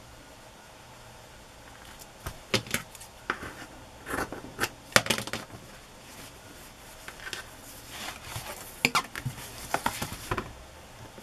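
Hands handling a fabric strip and an old hardback book cover on a cutting mat: irregular taps, knocks and rustles starting about two seconds in, the sharpest knock about halfway through.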